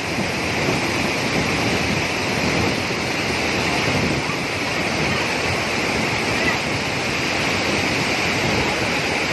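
Rupse waterfall's water cascading over boulders: a steady, loud rushing of falling water.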